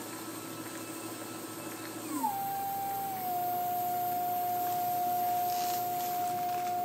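Stepper motor turning the clay extruder's auger screw, whining at a steady pitch that glides down to a lower steady pitch about two seconds in as the motor's speed is changed.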